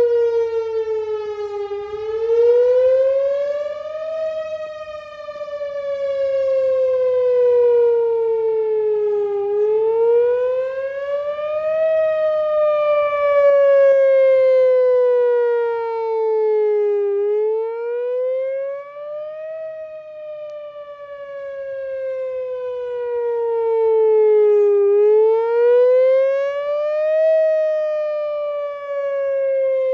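Whelen Vortex R4 electronic outdoor warning siren sounding its wail tone: the pitch climbs for about two seconds, then slides slowly down for about five, four times over, growing louder and fainter as it goes.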